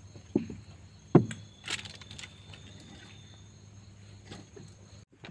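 A few short knocks and thumps of things being handled against the boat's hull and floor boards, mostly in the first two seconds, over a faint steady high insect trill.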